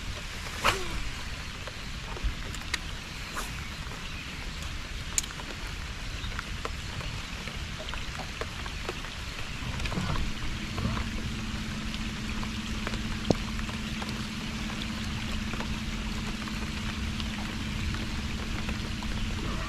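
A steady rain-like hiss with scattered light knocks and clicks. A steady low hum comes in about halfway through.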